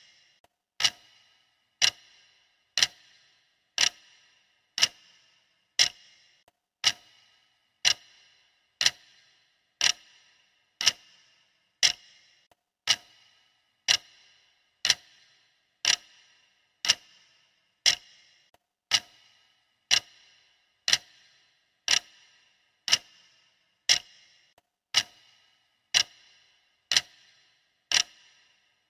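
Steady clock ticking: one sharp tick about every second, evenly spaced, each with a brief ringing tail.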